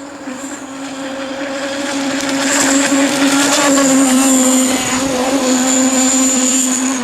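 Zenoah G-25 26cc two-stroke petrol engine of an RC model power boat running at high revs, a steady high-pitched buzz that grows louder about two and a half seconds in.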